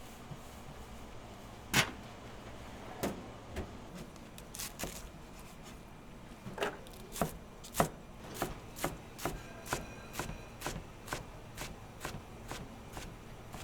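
Kitchen knife chopping food on a cutting board: a few separate cuts, the sharpest about two seconds in, then a steady run of about two chops a second.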